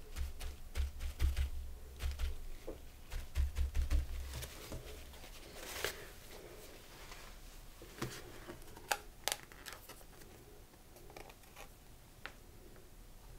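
Crumpled paper towel dabbed and rubbed over a gel printing plate, making rapid soft thumps and paper rustle for the first four seconds or so. After that there are only a few scattered light clicks and taps.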